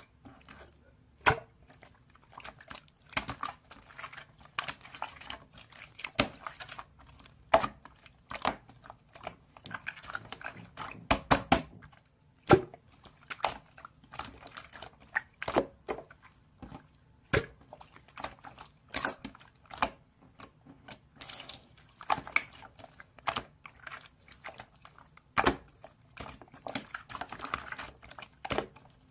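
Purple slime being squeezed and pressed by hand, giving irregular sticky clicks and pops, some in quick runs of several.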